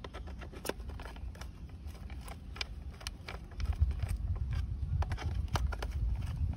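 Small screwdriver driving screws into a plastic toy bus chassis: scattered light clicks and ticks of the tip and the hard plastic being handled. Underneath runs a low rumble that gets louder about halfway through.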